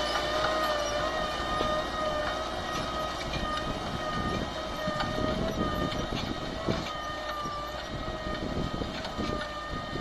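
Valmet 985 tractor's diesel engine running under load, pulling an offset disc harrow through dry ground, with a steady high whine held over the engine and scattered clanks and rattles from the harrow.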